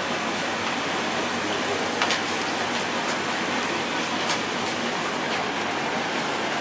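A hooked catfish thrashing at the surface near the bank, giving a few short, sharp splashes about two to four and a half seconds in, over a steady hiss.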